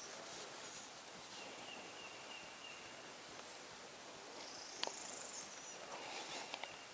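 Spring woodland ambience: thin, high bird or insect calls over a steady background hiss. There is a sharp click about five seconds in, the loudest sound, and a few lighter ticks near the end.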